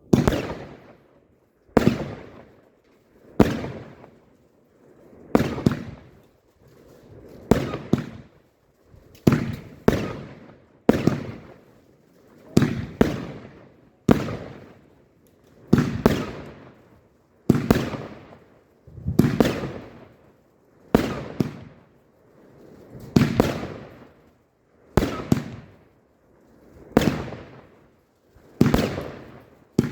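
A 25-shot, 30 mm consumer firework battery firing its shots one after another, about one every two seconds. Each shot is a sharp bang with a fading tail.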